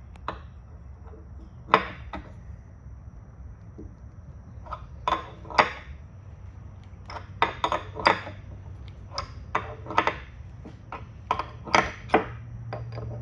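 Metal clamp hardware clinking and knocking as the clamps are set and worked along a glued wooden panel: a dozen or so sharp, irregular strikes, the loudest about two seconds in. A steady low hum runs underneath.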